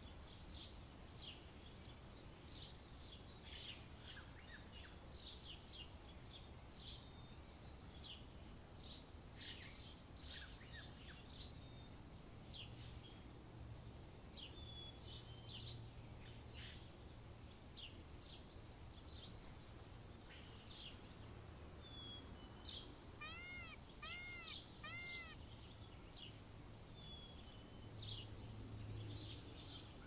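Faint outdoor birdsong: many short, high chirps and twitters from small birds over a low steady hum. About three-quarters of the way through comes a run of three short, arched calls, each rising and falling in pitch.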